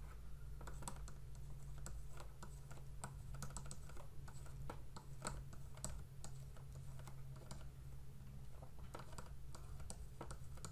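Faint, irregular clicks and taps of a stylus writing on a tablet screen, over a steady low hum.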